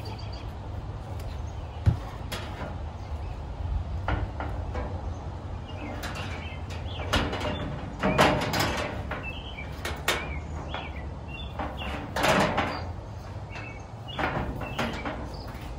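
Sheet-metal panels of a gas grill cabinet being handled and fitted together: scattered clanks, knocks and scrapes of thin painted steel, with one sharp knock about two seconds in. A steady low hum runs underneath.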